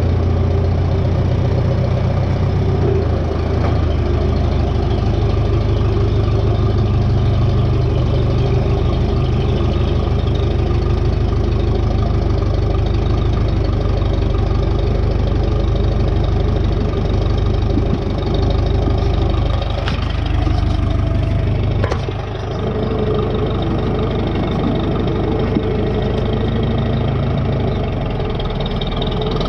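Tractor engine running steadily, with a brief drop in level about two-thirds of the way through.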